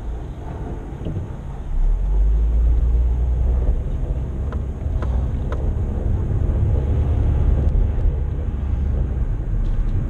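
Low, steady rumble of a car driving, heard inside the cabin, getting louder about two seconds in as the car picks up speed. A few faint clicks come near the middle.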